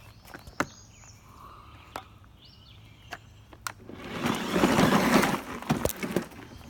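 Scattered clicks and knocks from handling the controls of a battery-powered lawn mower that is not running, with a loud burst of noise about four seconds in that lasts over a second.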